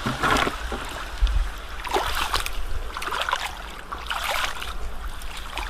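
Splashing and sloshing in shallow seawater, a short swish about once a second, like steps wading across a wet tidal flat.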